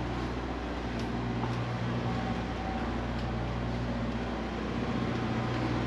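A steady low mechanical hum, like a motor or fan running, with a few faint clicks.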